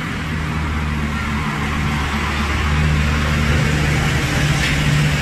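Sightseeing road train (a tractor unit pulling open passenger carriages) driving past at close range, its motor giving a steady hum that grows a little louder as it draws alongside.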